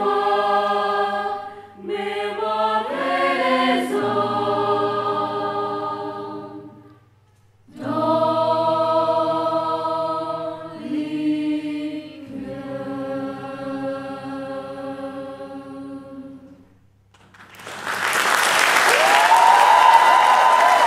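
Mixed student choir singing long held chords in several phrases with short breaks, closing on a final chord. In the last few seconds an audience bursts into applause.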